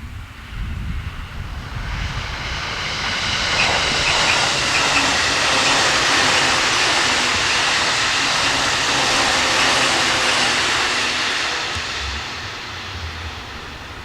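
An electric train passing on the line: its running noise swells over about two seconds, holds loud for several seconds, then fades away near the end. Wind rumbles on the microphone underneath.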